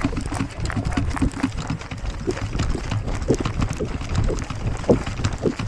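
Running footsteps, an uneven series of thumps, with clothing and gear rustling.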